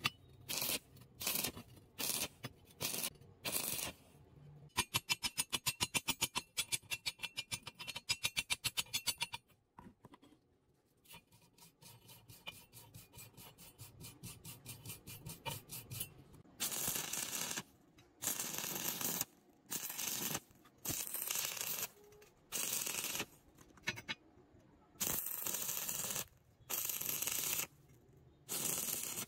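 Stick welding on steel rebar: the arc crackles in short bursts, about two a second at the start and in longer, roughly one-second bursts through the second half, as the electrode is struck and lifted again. In between, a wire cup brush scrubs the bar with a fast, even rattle.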